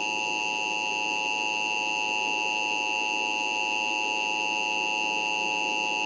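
Emergency Alert System attention signal: a steady electronic alert tone that holds without change in pitch or level. It is the alarm that announces an emergency alert message is about to follow.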